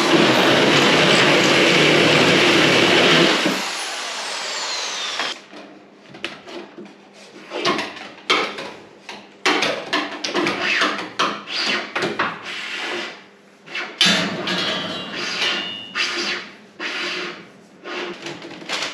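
Electric drill boring a hole in the wall, running steadily and stopping about three and a half seconds in. After it, irregular scraping, rubbing and knocks as a length of plastic water pipe is handled against the wall and cupboard.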